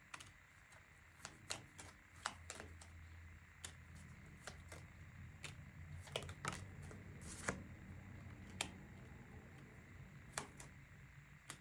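A tarot deck being shuffled by hand: quiet, irregular snaps and slaps of cards against each other, a dozen or so through the stretch, over a faint steady low hum.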